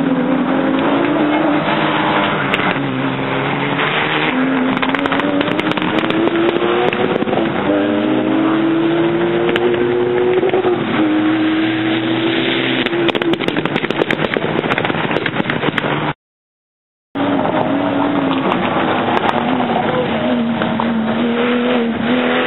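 Rally car engines at full throttle as cars pass at speed, the pitch climbing and dropping again and again with the gear changes. About two-thirds of the way through the sound drops out completely for about a second.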